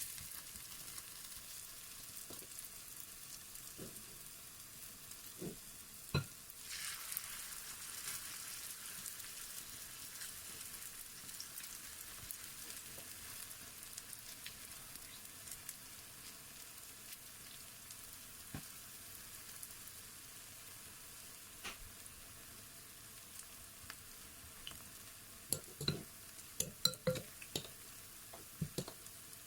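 Battered grated sweet potato fritters frying in hot oil, a steady sizzle that swells about seven seconds in. A few sharp clicks sound near the end.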